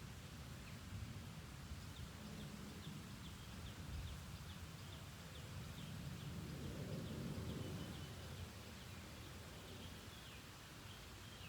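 Faint steady rain with a low rumble that swells about halfway through, and a bird giving a fast run of short, high chirps, about three or four a second, that stops near the end.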